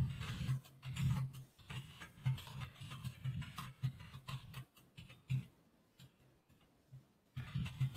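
Typing on a computer keyboard: quick runs of key clicks, stopping about five and a half seconds in and starting again briefly near the end.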